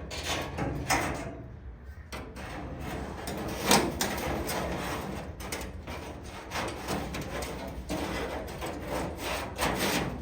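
Irregular rubbing and scraping of material being handled and worked, with a sharper knock about four seconds in.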